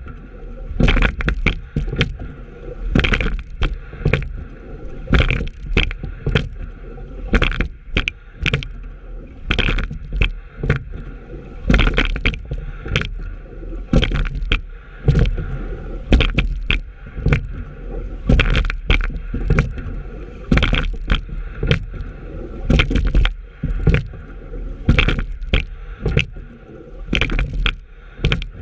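Rowing shell under way, stroke after stroke: oars knocking in the oarlocks and blades working the water, a cluster of sharp knocks about every two seconds, over water rushing and gurgling along the hull.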